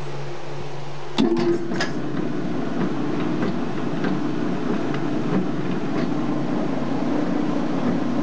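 Hobart 60-quart mixer: a quick clatter of clicks about a second in, then its motor and gear drive running with a steady mechanical drone and a light, irregular ticking rattle.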